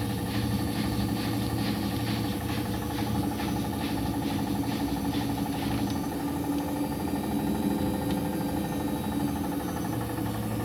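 Samsung WF702U2BBWQ front-loading washing machine in its spin cycle: a steady motor and drum hum with a regular knock about three times a second that stops about six seconds in. The knock is the fault this new machine has during spin.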